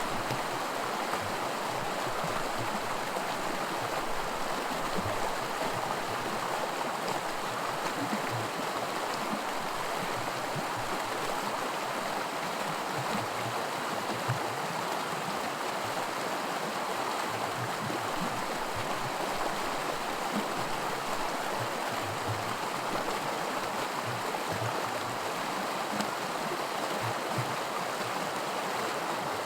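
Small creek running over rocks in shallow riffles of white water: a steady, even rush of water.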